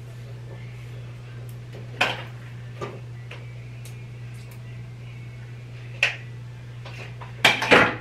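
Hair tools being handled while straightening hair: sharp plastic clicks and clacks from a flat iron and comb, a few scattered ones and a louder cluster near the end, over a steady low hum.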